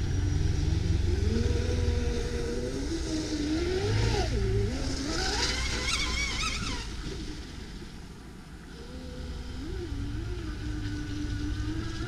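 Traxxas M41 radio-controlled boat's electric motor whining, its pitch rising and falling with the throttle. It climbs to its highest pitch about six seconds in, then eases off.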